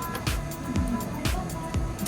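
Music with a steady beat of low thuds, about two beats a second.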